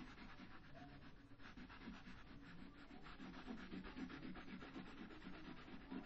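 Faint scratchy rubbing of a yellow crayon on paper, colouring in with quick, even back-and-forth strokes.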